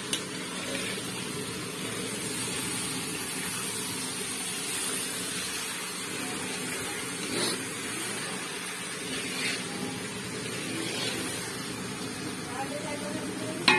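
Chicken curry sizzling in a large steel kadhai over a gas burner: a steady hiss, with a couple of brief scrapes of the spatula on the pan.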